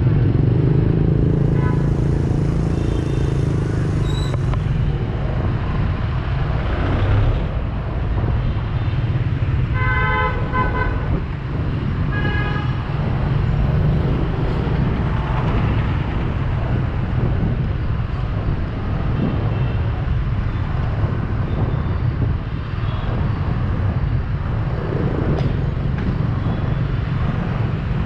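Dense street traffic of motorbikes and cars, heard from among them on the road: a steady rumble of engines and tyres, with vehicle horns beeping several times, loudest about ten seconds in and again a couple of seconds later.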